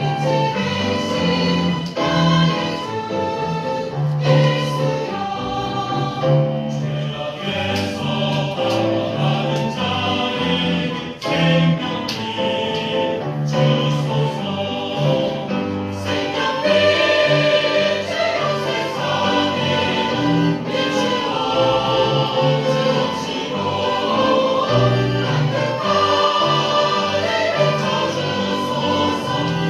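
Church choir singing a sacred anthem in parts with instrumental accompaniment.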